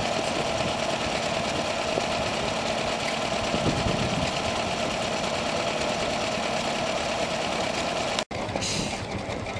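Small vintage stationary engine running steadily. The sound cuts out abruptly for an instant near the end and comes back changed.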